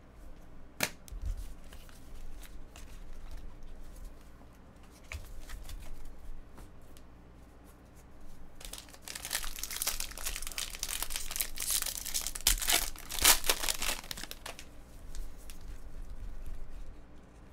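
A Bowman Draft trading-card pack wrapper being torn open and crinkled, a loud crackling run of several seconds in the middle. A single sharp click about a second in.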